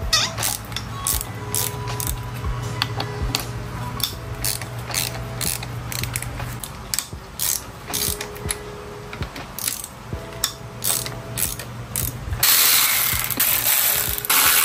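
Ratchet wrench clicking in short, irregular runs as bolts on a motorcycle's front end are undone. A little over twelve seconds in, a cordless electric ratchet runs for about two seconds.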